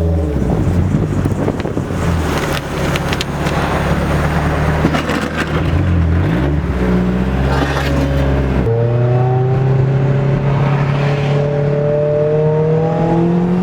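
Car engine running while the car is under way, its note mostly steady with a brief dip and rise. About nine seconds in, the note jumps to a higher, steady drone that climbs slightly near the end.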